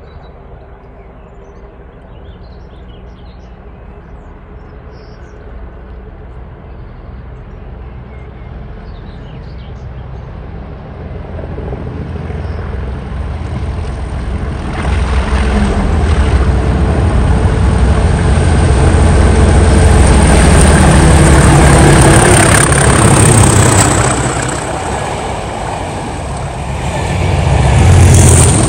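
Two Class 37 diesel locomotives with English Electric V12 engines, working hard, approach and pass with a test train. The engine sound builds steadily, is loudest as the locos go by, dips, then swells again near the end, with a high whistle over the engine note.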